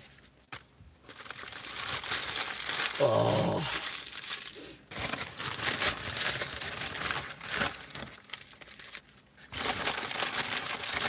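Paper fast-food wrapping and bag crinkling and rustling as they are handled and opened, pausing briefly near the end. A man's voice gives a short hum about three seconds in.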